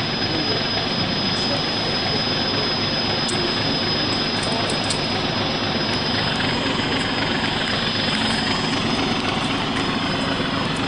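Steady wind noise rushing over the microphone, even and unbroken, with a faint high whine beneath it.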